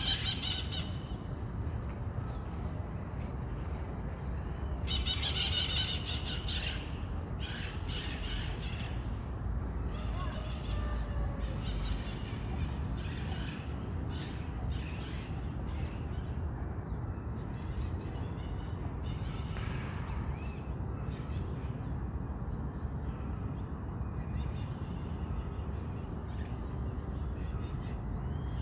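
Outdoor street ambience: a steady low rumble with scattered bird calls over it, and a louder burst of squawking about five seconds in.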